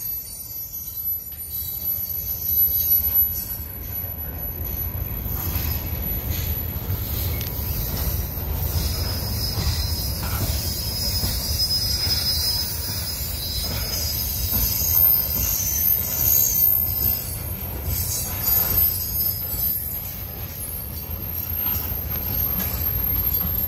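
Freight train rolling slowly past: a steady low rumble of steel wheels on the rails, with thin high-pitched wheel squeal in the middle stretch and a few sharp clanks.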